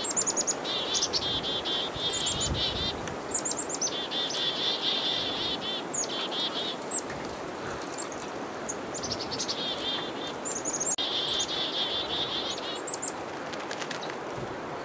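Several black-capped chickadees giving chick-a-dee mobbing calls: high, sharp opening notes followed by long runs of harsh, rapid dee notes, in about four bouts. This is alarm calling at a perched predator, the northern pygmy-owl; runs of many dee notes mark a dangerous small predator.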